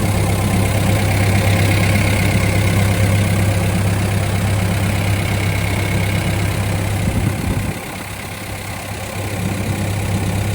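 The diesel engine of a 2018 John Deere 60G mini excavator running steadily. Its level drops for a second or two about eight seconds in, then comes back up.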